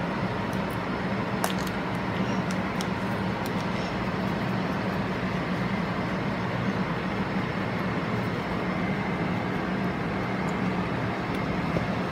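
Steady mechanical hum and hiss of a running air conditioner, with a few faint light ticks in the first few seconds.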